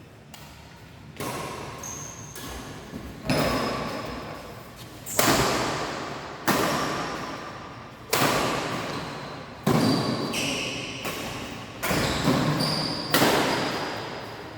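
A badminton rally: about ten racket strikes on the shuttlecock, one every one to two seconds, each ringing out in the echo of a large sports hall. Short high squeaks come between some of the strikes.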